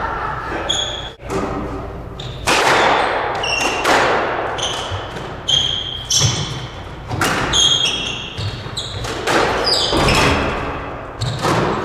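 Squash rally: the ball cracking off rackets and the court walls about once a second, each hit echoing in the court, with short high squeaks of shoes on the hardwood floor between hits.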